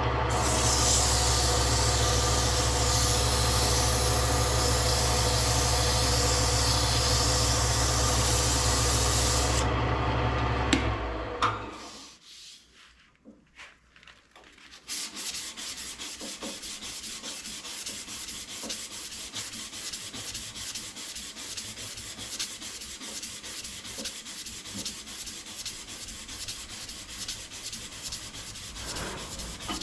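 A power tool motor runs steadily, then winds down and stops about eleven seconds in. After a short pause, sandpaper rubs on wood in quick, even strokes.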